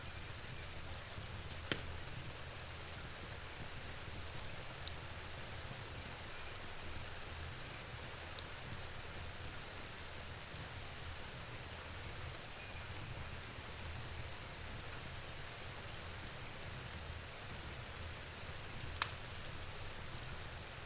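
Steady rain hiss with an open wood fire crackling under it. A handful of sharp pops stand out: the loudest comes about two seconds in, and another near the end.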